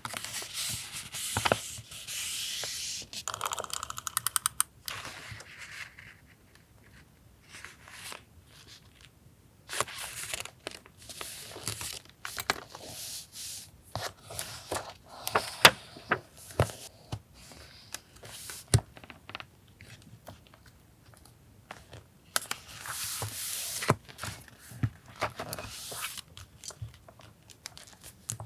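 Close-up paper crafting: paper, stickers and masking tape being rustled, peeled off and torn in separate bursts, with a rapid run of crackles about three seconds in and occasional sharp taps.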